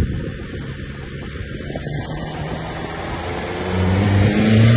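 Engine hum with road and wind noise from vehicles moving at street speed, a car and a sport motorcycle side by side. The engine note grows louder about four seconds in.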